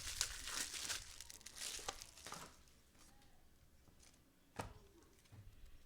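Cellophane wrapper of a trading-card cello pack crinkling and tearing as it is opened and handled, for about two and a half seconds, then a single sharp tap about four and a half seconds in.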